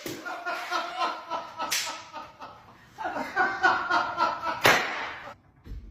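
A person laughing in two long runs of pulsing laughter, with sharp slap-like smacks about two seconds in and again near the end.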